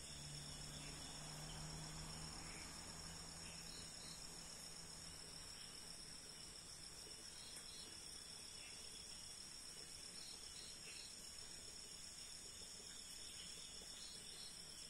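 Crickets and other night insects trilling steadily in a continuous high-pitched drone, with faint short chirps scattered through it.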